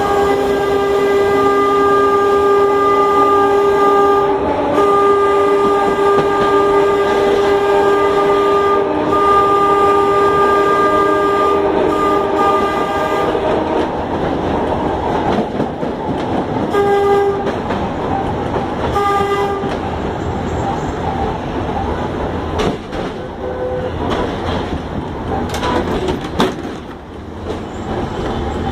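Heliopolis tram running, heard from inside the driver's cab. A steady whine of several notes fills the first half, broken by brief gaps. Then wheel rumble and rail clatter take over, with two short blasts of the same tone partway through.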